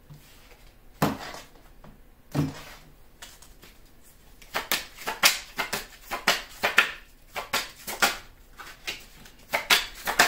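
A deck of tarot cards being shuffled by hand. A couple of single knocks come first, then from about four and a half seconds in a quick run of card clicks and slaps.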